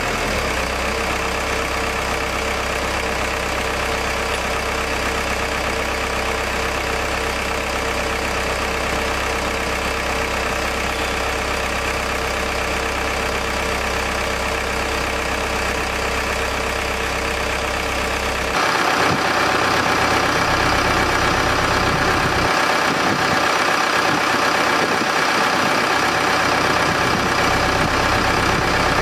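An engine idling steadily. About two-thirds of the way through, the sound changes abruptly: the deep low end drops away and a brighter, higher hum takes over.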